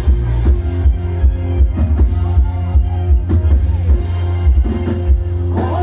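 Loud electronic dance music with a heavy bass beat and drums, blasting from a Thai rot hae sound-system truck.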